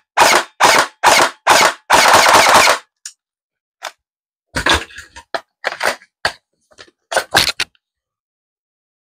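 Zius BK1S electric gel blaster firing in five quick bursts over the first three seconds, the last burst the longest, followed by a scatter of shorter sharp clicks and snaps.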